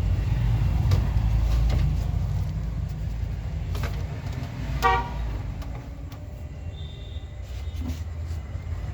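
Road traffic rumbling steadily, with a short vehicle horn toot about five seconds in.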